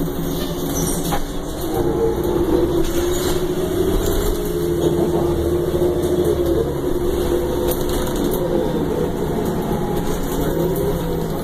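2009 Orion VII transit bus heard from inside the cabin while under way: engine and drivetrain running with a low rumble and a steady whine whose pitch wavers a little as the bus speeds up and slows.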